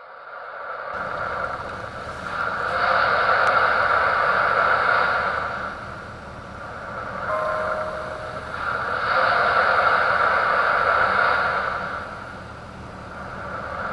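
Storm-at-sea sound effect: a rushing noise of wind and surf that fades in and then swells and eases in slow surges.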